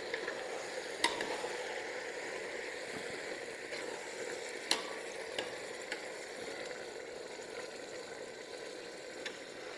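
Meat, onions and freshly added chopped tomatoes sizzling in hot oil in a pressure cooker pot while being stirred with a metal spoon. The spoon clicks against the pot several times, the sharpest a little under five seconds in.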